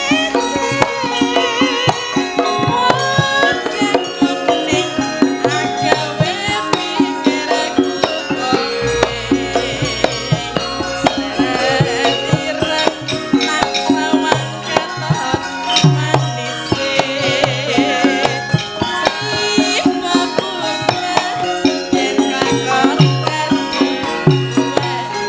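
Javanese gamelan music with many pitched instruments and a hand drum keeping the beat.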